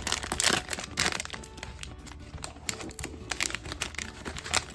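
Plastic blind-bag packaging crinkling as it is handled and torn open, a dense run of small irregular crackles.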